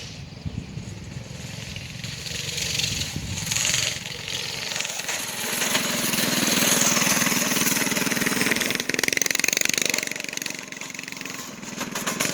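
Straight-piped Yerf Dog go-kart's small engine running and revving, growing louder about halfway through and easing off near the end.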